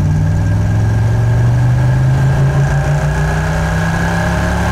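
1971 Plymouth Road Runner's V8 pulling under acceleration, heard from inside the cabin, its note rising slowly in pitch. The car is gaining speed slowly: the engine is down on power, running with too little ignition advance.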